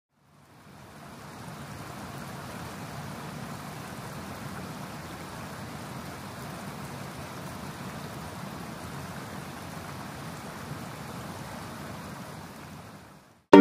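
Car driving through floodwater, heard from inside the cabin: a steady rushing hiss of water spraying up against the body and windows over a low rumble. It fades in about half a second in and fades out near the end.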